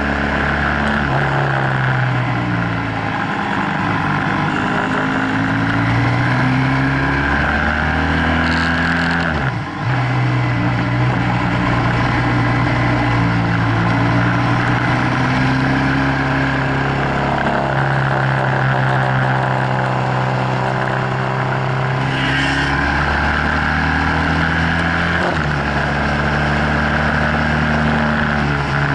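BMW F800GS parallel-twin engine running under way, its note rising and falling as the rider opens and closes the throttle through bends, with a sharp drop in pitch about ten seconds in. A steady rush of wind noise over the microphone runs under it.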